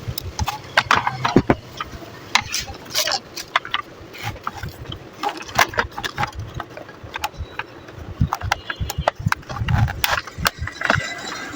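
A run of irregular sharp clicks and knocks, several a second, with a few duller thuds toward the end.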